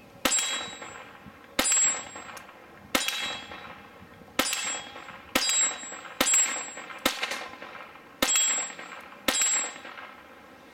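Browning Buckmark .22 LR semi-automatic pistol fired in a string of about nine shots, roughly one a second. Each shot is followed by the ringing clang of a hanging steel silhouette target being hit.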